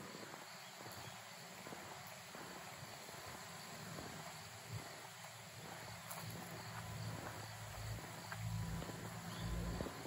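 Faint steady outdoor background noise, with a low rumble swelling near the end.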